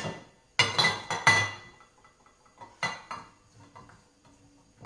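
Metal box grater scraping and clinking against a ceramic plate as soft smoked provola is rubbed over it: a cluster of strokes about half a second in and another near three seconds, then faint ticks. The cheese is too soft to grate.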